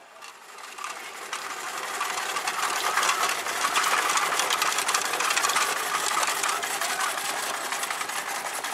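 Small engine running with a rapid, even mechanical clatter. It grows louder over the first three seconds, then holds steady.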